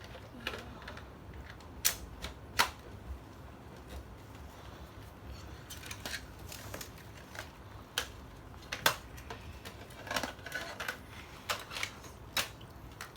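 Hard plastic clicks and rattles of Nerf blaster attachments being pushed and snapped into place. The clicks come at irregular intervals, with the sharpest about two and a half seconds and nine seconds in.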